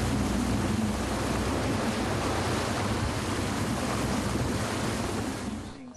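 Steady rush of sea water and wind from a boat under way, with wind on the microphone and a low rumble underneath. It fades out shortly before the end.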